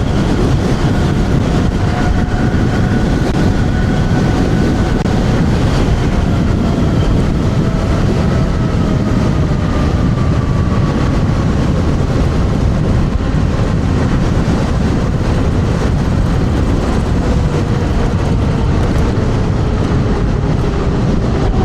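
Heavy wind rush on the microphone of an electric scooter ridden at high speed into strong wind. Under it, a faint electric motor whine slowly falls in pitch.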